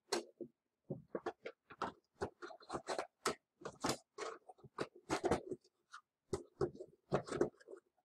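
Galileoscope's plastic tube and parts knocking and scraping against a cardboard box as they are packed away: a run of irregular clicks and scuffs.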